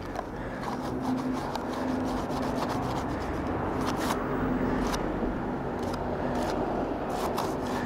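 Steady rubbing and scraping, as grime is rubbed off a CD pulled out of a recovered personal CD player so its label can be read, with a few faint clicks about halfway through.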